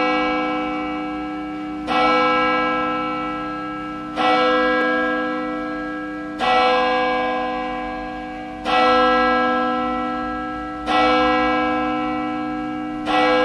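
A single church bell tolling at an even pace, struck about every two seconds, six times. Each stroke rings on and fades slowly until the next.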